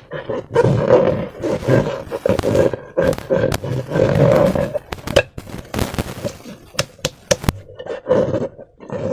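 Slime-filled rubber balloons being squeezed and rubbed by hand: a steady rubbery squeak with uneven squelching swells, and a run of sharp clicks and snaps between about five and seven and a half seconds in.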